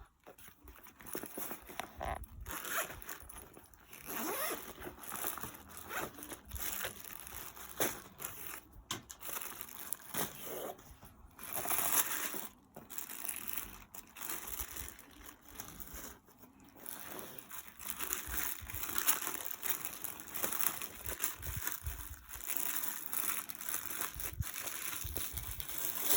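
Packaging being handled and opened to unbox goalkeeper gloves: irregular rustling and crinkling that comes in uneven bursts, with brief pauses in between.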